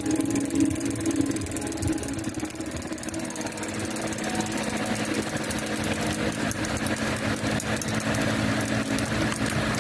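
An engine running steadily, with a rapid, regular ticking or knocking that becomes clearer about halfway through.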